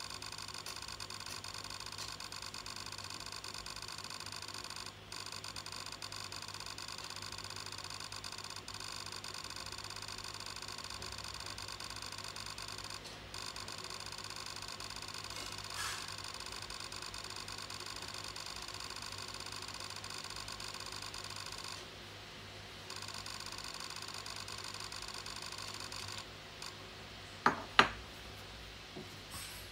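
Steady high-pitched electronic whine of several pitches from a Planmeca PlanScan intraoral scanner while it is scanning. It drops out for about a second, resumes, then stops as the scan ends, followed by two sharp clicks close together.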